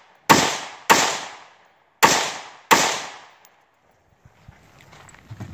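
Four rifle shots from a carbine fired outdoors, in two pairs about two-thirds of a second apart with over a second between the pairs, each trailing off in an echo. About four seconds in, faint running footsteps on grass begin.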